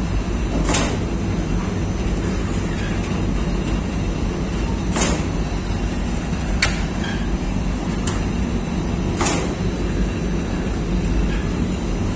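Lavash bakery machinery, a dough sheeting machine and rotary oven, running with a steady low hum. A short hissing swish comes about every four seconds, three times, and two sharp clicks come in the second half.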